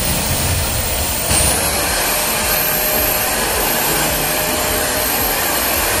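Deerma DX118C corded stick vacuum cleaner running steadily while being pushed over a tiled floor to pick up dust: a loud motor rush with a high whine that rises in pitch a little over a second in.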